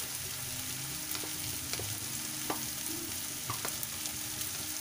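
Chopped onion, carrot and potato sizzling in hot oil in a steel kadhai, a steady hiss with a few short sharp crackles.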